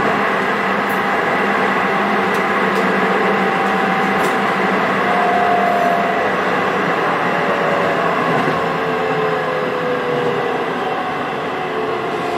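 Steady running noise of a Hokuso 7800 series commuter train heard inside the car in a tunnel. Faint whining tones from its Toyo GTO-VVVF inverter glide slowly downward a few times over the noise.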